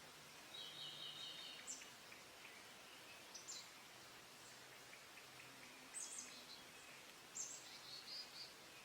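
Songbirds calling faintly: a short trill about half a second in, then several brief, high chirps scattered through, over a soft steady hiss.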